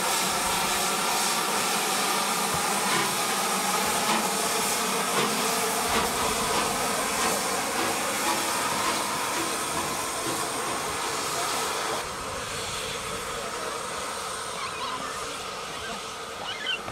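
Merchant Navy class steam locomotive No. 35006 hissing steam steadily, with a few steady tones running through the hiss. The sound drops a little about twelve seconds in.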